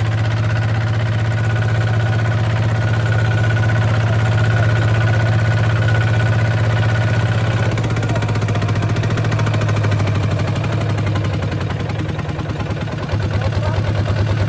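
A small bulldozer's engine running steadily with an even low pulse, easing off slightly and picking back up shortly before the end.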